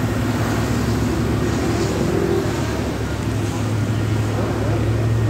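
A motor vehicle engine running steadily with a low hum that grows louder about halfway through, over street traffic noise.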